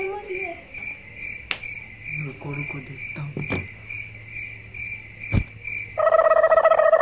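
A cricket chirping steadily, about two chirps a second, with a few faint knocks. About six seconds in, the chirping cuts off and a loud, steady tone sounds for just over a second.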